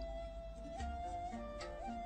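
Soft background music: a slow melody of long held notes.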